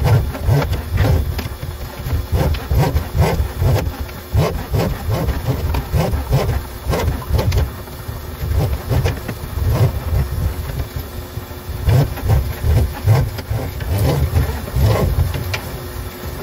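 Powered drain snake running, its spinning cable feeding into a kitchen sink drain line, with an uneven low motor pulse and irregular knocks and rattles of the cable. The cable is being run out to its full 50 feet to push a clog in the branch line toward the street.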